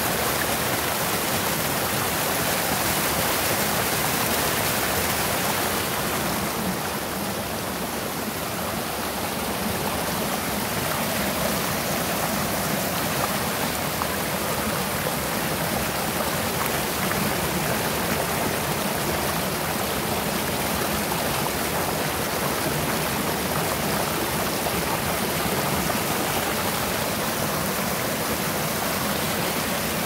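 Mountain stream rushing and splashing over rocks in a small cascade: a steady full-range rush that eases a little for a few seconds about seven seconds in.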